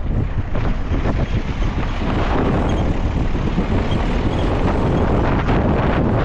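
Wind buffeting the microphone: a loud, steady rushing noise with a heavy low rumble that flickers quickly.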